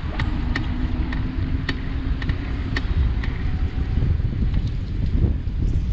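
Repeated sharp creaks from a Cowboy C4 e-bike's crank/bottom bracket, roughly two a second while pedalling, over heavy wind noise on the microphone. A faint steady hum runs under the first half.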